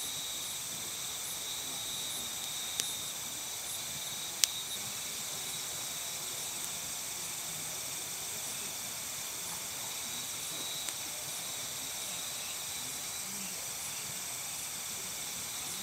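Night chorus of crickets and other insects trilling steadily. A few sharp pops from a wood campfire cut through it, the loudest about four seconds in.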